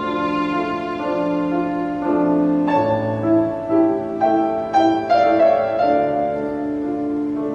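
Instrumental background music: slow held notes on bowed strings, with piano notes struck a little under 3 seconds in and again around the fifth second.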